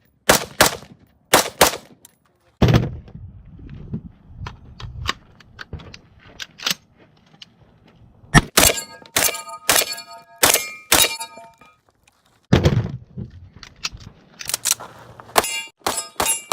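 Gunfire in quick strings with pauses between them as a shooter works through a three-gun stage, steel targets clanging and ringing after hits. Two heavier, deeper booms come at about three seconds in and about thirteen seconds in.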